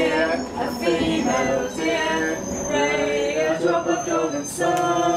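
Voices singing a song, with held notes, over the running rumble of an underground train carriage.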